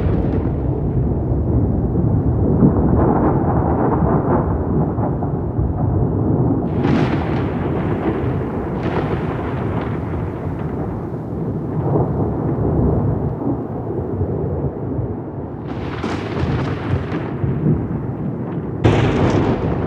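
Rolling thunder rumbling on without a break, with sharper cracks about a third of the way in, again at about three quarters, and near the end.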